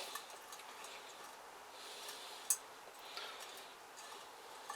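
Faint handling of metal engine parts with one sharp click about halfway through, as the cylinder barrels are worked down over the pistons.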